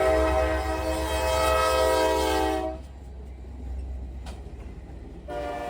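Diesel freight locomotive's multi-chime air horn sounding: one long blast that ends about three seconds in, then another blast starting near the end, over a steady low rumble from the train.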